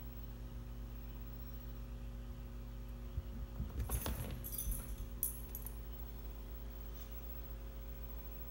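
A steady low hum, with a brief run of light jingling clicks about three to six seconds in.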